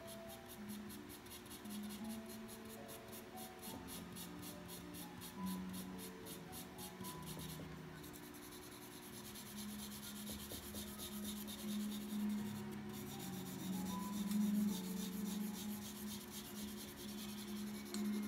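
Charcoal pencil scratching across toned drawing paper in rapid, repeated shading strokes, stopping briefly twice. Soft background music with slow, held notes plays underneath.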